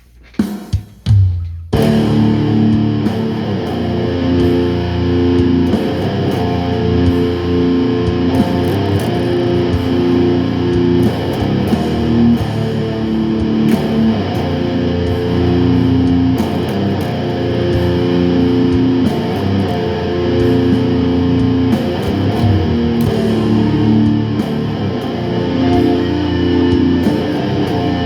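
Guitar-driven rock music that starts abruptly about two seconds in, after a few short sounds, and then plays without a break.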